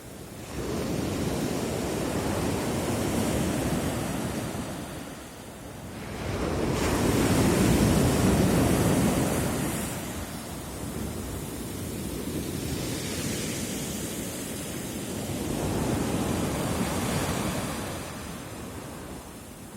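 Sea surf: waves breaking and washing up the shore in slow surges that rise and fall every few seconds, the biggest about seven seconds in.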